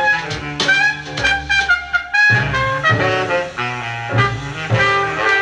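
Jazz record playing through a KLH Model Twenty Plus stereo record player's speakers: a trumpet plays a line of changing notes over a bass.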